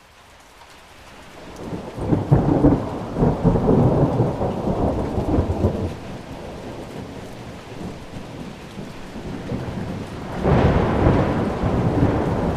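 Thunderstorm: heavy rain with two long rolls of thunder, the first building up about two seconds in and rumbling for several seconds, the second breaking suddenly near the end.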